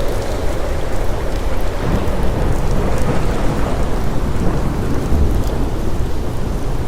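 Ocean surf: waves breaking and rolling in, a loud, steady rush of water with a deep low rumble.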